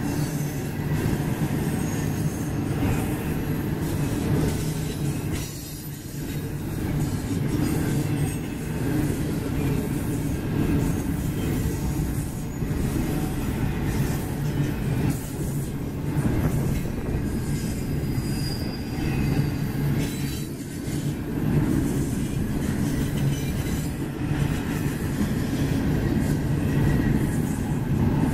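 Double-stack intermodal container cars rolling past: a steady rumble of steel wheels on rail, with a few brief, faint high-pitched wheel squeals here and there.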